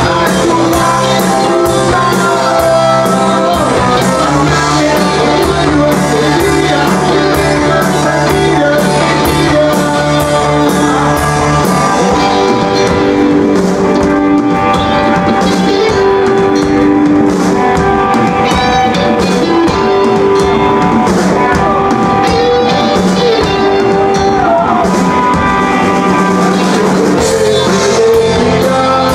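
A live rock band playing loud: electric guitars over a drum kit, with the arrangement shifting about twelve seconds in.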